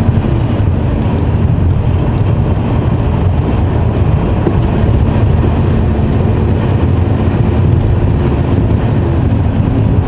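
Mercedes-Benz Actros truck on the move: a steady low engine drone under road and tyre noise.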